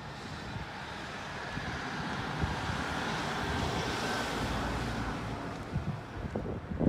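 A motor vehicle driving close past, its noise swelling and then fading, with wind buffeting the microphone in gusts near the end.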